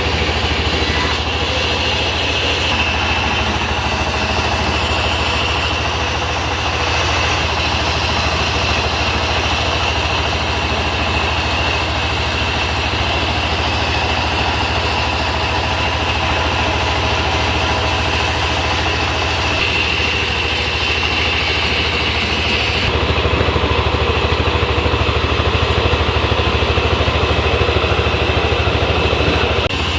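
Sawmill engine running steadily, its sound shifting abruptly several times.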